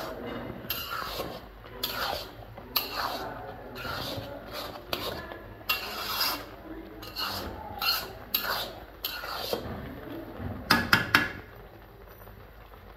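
A spoon stirring and scraping plum pickle around a pan, in repeated strokes about one to two a second, with three quick knocks of the spoon on the pan near the end.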